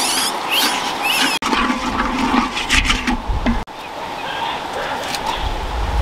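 A wooden stick stirring and scraping dry salt around a large iron wok over a charcoal fire. Short, high chirping calls come in the first second or so.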